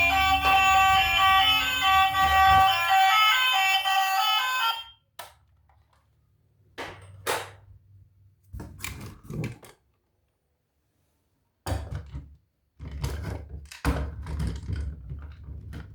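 An electronic tune of short beeping notes over a low rumble plays for about five seconds and stops suddenly. It is followed by scattered thunks and knocks, as of toys being handled.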